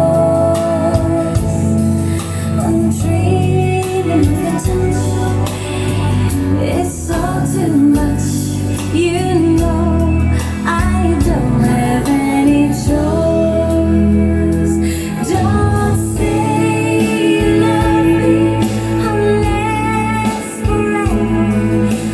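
A song with singing and a strong bass line played back through a JBL MK10 passive loudspeaker driven by an AD MC1000 power amplifier, as a sound test.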